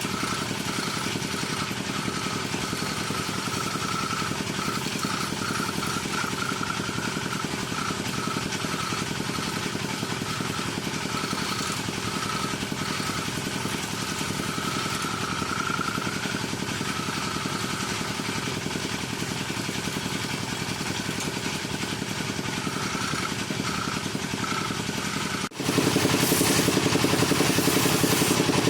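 Wood lathe running steadily. About three-quarters of the way through, the sound cuts suddenly to a louder, rougher run.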